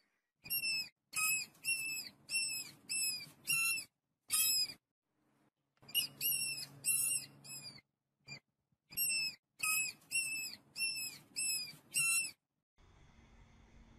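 An animal gives a run of short, high-pitched squeaking calls, about three a second, in three bursts with brief pauses between them. The calls stop shortly before the end, leaving a faint steady hum.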